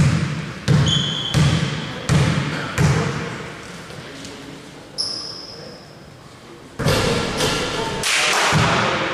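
A basketball dribbled on the court, bouncing about every 0.7 s for the first few seconds, then a single bounce about five seconds in. Two short high squeaks, and near the end a louder burst of noise with another thump.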